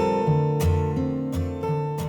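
Background music: acoustic guitar strumming chords, fading out.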